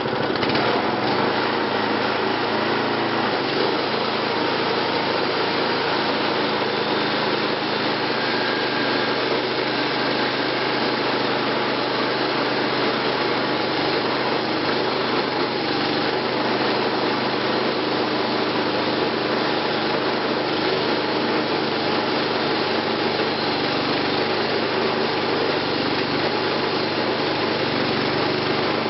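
Wood-Mizer LT20 portable band sawmill running. Its engine changes note in the first few seconds, then runs steadily as the band blade saws through a log.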